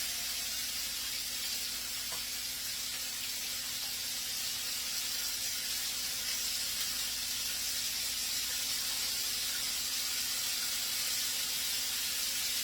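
Cornstarch-coated chicken pieces frying in hot oil in a pan, sizzling steadily.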